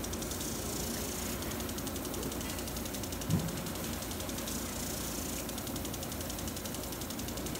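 Aquamate 1/2-inch full-circle sprinkler running, its drive ticking rapidly and evenly, with the hiss of water spray swelling as the jet sweeps past, twice. One soft low thump about three seconds in.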